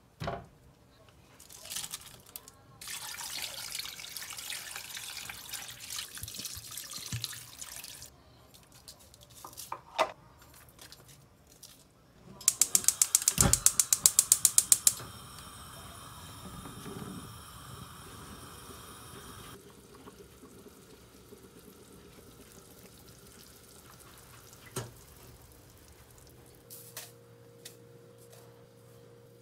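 Water pours into a frying pan for several seconds. About halfway through, a portable gas stove's igniter clicks rapidly, about ten clicks a second for a couple of seconds, as the knob is turned, followed by a steady hiss for a few seconds as the burner lights.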